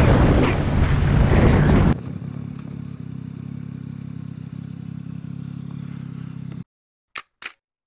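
Wind rushing over a helmet-mounted microphone on a moving motorcycle; about two seconds in it cuts abruptly to the motorcycle's engine running steadily at a stop. The engine sound cuts off near the end, followed by three short clicks.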